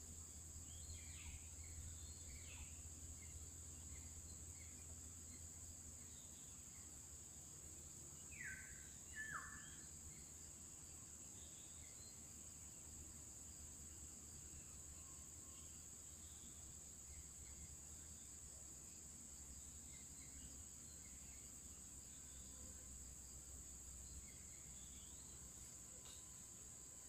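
Steady high-pitched insect chorus. Faint bird chirps are scattered through it, and two short falling calls come about eight and nine seconds in.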